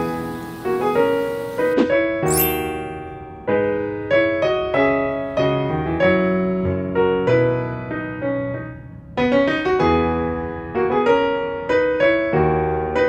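Background piano music: a melody over chords, each note struck and then fading, with a quick rising sweep of high notes about two seconds in.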